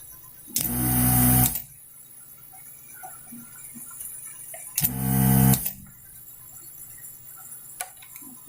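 Vacuum desoldering gun's pump running twice for about a second each, a buzz with a rushing hiss of suction as melted solder is drawn off the chip's pins.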